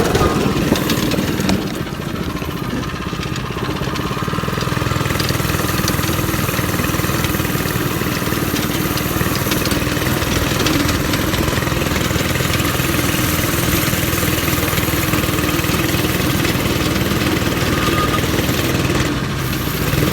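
Go-kart engine running steadily as the kart is driven, easing off about two seconds in and then building back up and holding.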